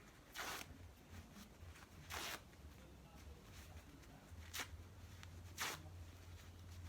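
Paper being torn into pieces by hand: four short rips, the longer two about half a second and two seconds in, two quicker ones later.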